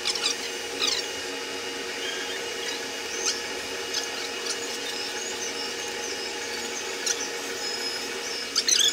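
Two-post vehicle lift lowering a car: a steady faint hum with scattered short high squeaks and chirps throughout.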